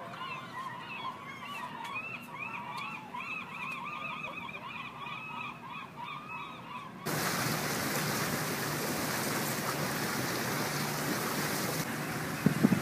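A flock of birds giving short, rising-and-falling calls over and over. About seven seconds in they give way abruptly to the steady rush of a boat under way: motor, wind and water. A couple of sharp knocks come near the end.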